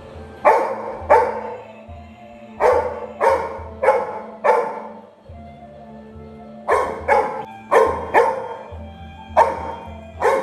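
Labrador retriever puppy barking: about a dozen short barks in clusters of two to four, over background music with a steady low beat.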